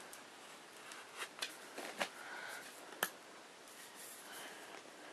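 Faint handling noises: a few light clicks and soft rustles, the sharpest click about three seconds in.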